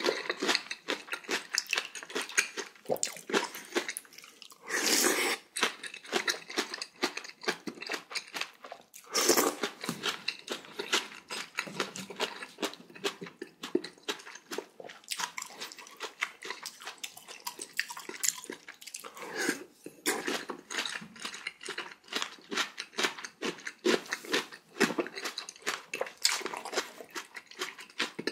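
Close-miked eating sounds: a person chewing and crunching spicy cubed radish kimchi (kkakdugi) with pork bone soup, with rapid, irregular wet mouth clicks throughout. A few louder, longer sounds come about five, nine and nineteen seconds in.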